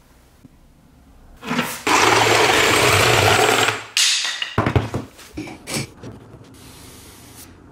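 A power tool runs steadily for about two seconds, then stops. A few sharp knocks of workshop handling follow.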